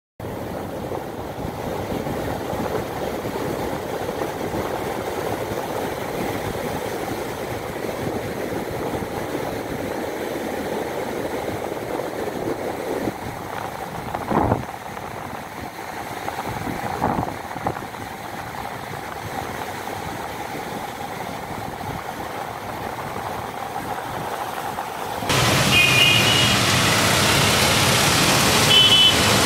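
Steady rushing of rough surf, with two louder surges as waves break around the middle. About 25 seconds in it cuts to louder hiss of heavy rain over street traffic, with a few short high tones.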